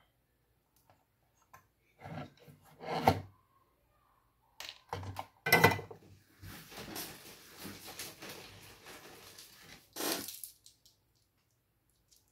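Workbench handling noises: a few clusters of knocks and thuds with scraping in between, as the soldering iron is put down and the motherboard is moved on the bench.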